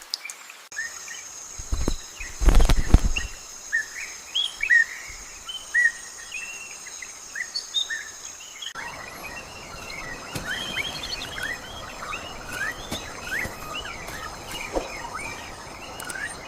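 Forest ambience: many short bird chirps and whistles over a steady high-pitched insect drone. A few loud low thumps come between two and three seconds in, and a steady hiss joins at about nine seconds.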